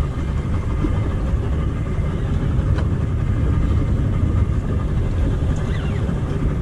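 Fishing boat's engine idling with a steady low rumble, under a constant haze of wind and water noise.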